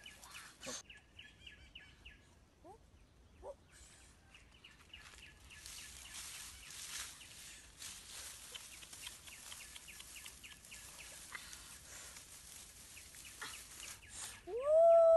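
Dry grass and leaves rustling as a grass bird's nest holding eggs is handled and lifted from the scrub, over a rapid, even chirping in the background. Near the end comes a short, loud vocal exclamation that rises in pitch and then holds.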